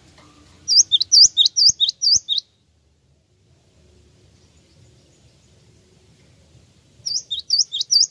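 Cinereous tit (gelatik wingko) singing: two bursts of about six quick, high, down-swooping notes each, one about a second in and another near the end.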